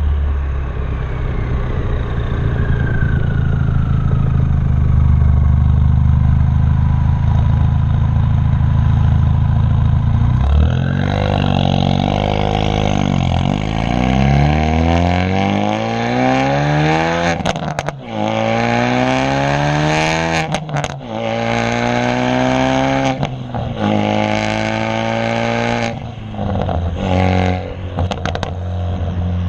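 Exhaust of a 2016 Ford Focus RS's turbocharged 2.3-litre EcoBoost four-cylinder, with a catless downpipe and muffler delete and an E30 burble tune. For about ten seconds it holds a steady low drone while a high whine falls away. Then it revs up repeatedly through several gear changes, its note rising with each pull and dropping at each shift, with sharp cracks and pops when the throttle closes.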